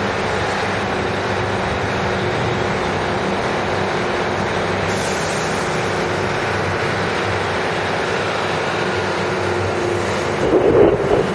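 Diesel multiple unit, two Class 150 Sprinter units coupled, approaching and running past with a steady diesel engine drone and wheels on the rails. A brief hiss comes about five seconds in, and the noise swells as the cars go close by near the end.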